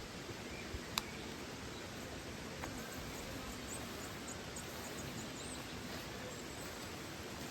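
Steady rush of flowing water from a nearby waterfall. A single sharp crack about a second in, and a quick run of about a dozen high, thin chirps near the middle.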